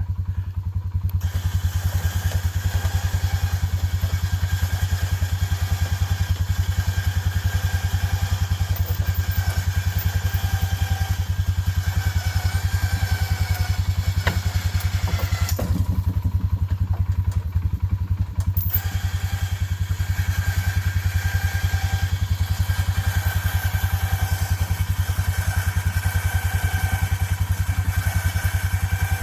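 ATV engine running steadily at an even pace, powering the winch that hauls a garage door panel up by rope and pulleys. A couple of sharp knocks come about halfway through.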